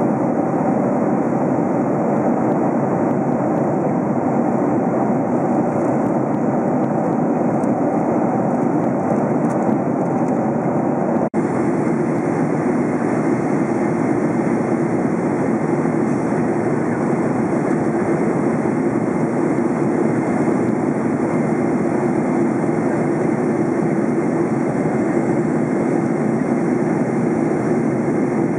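Steady in-flight cabin noise of a Boeing 747-400 heard from a window seat over the wing: the even roar of the Rolls-Royce RB211 turbofans and rushing air. It drops out for an instant about eleven seconds in, then carries on slightly brighter.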